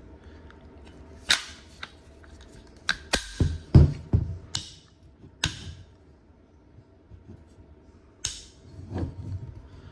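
Scattered sharp metallic clicks and knocks of an AR-15 rifle being handled after reassembly, about a dozen in all. The loudest comes with a dull thump about four seconds in.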